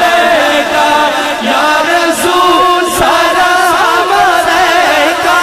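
Man singing a Punjabi naat unaccompanied into a microphone, with other voices chanting along beneath his melody.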